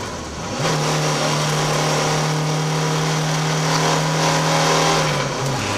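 Škoda Fabia RS TDI rally car's turbodiesel engine heard from inside the cabin under hard driving: the engine note jumps up about half a second in, holds steady revs, then drops back in pitch shortly before the end, with road and tyre noise throughout.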